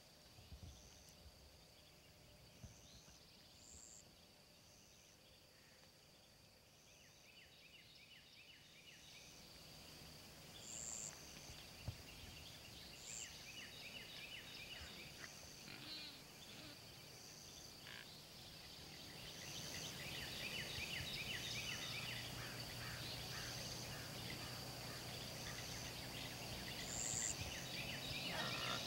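Insects chorusing in a grassy field: a steady high drone with short chirps repeating about once a second and rapid pulsed trills beneath, plus a few short higher calls. The chorus grows louder about two-thirds of the way through.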